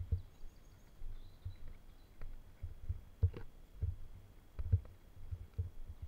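Footsteps on a dirt path, heard as dull low thuds about twice a second through the moving camera, with a few faint bird chirps.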